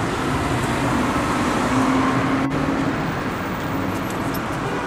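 Road traffic noise: a steady rumble of vehicles, with an engine hum strongest around two seconds in.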